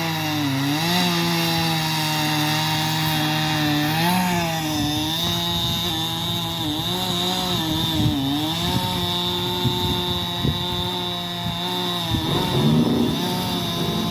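Chainsaw running under load as it cuts into a large pine, its engine note dipping and recovering several times as the chain bogs in the wood. About twelve seconds in, a second engine note joins in and rises.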